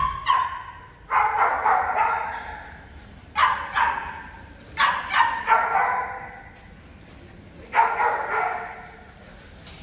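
Dogs barking in a series of loud barks in clusters, the barks echoing off the tiled kennel room.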